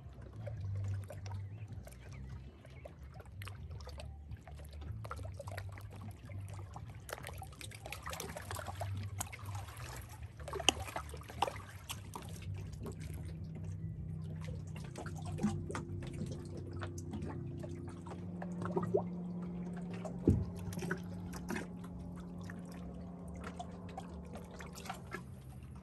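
Water trickling and dripping around a canoe being paddled in to a rocky shore, with scattered small knocks and a few sharp clunks, the loudest about ten and twenty seconds in. A low steady hum comes in during the second half.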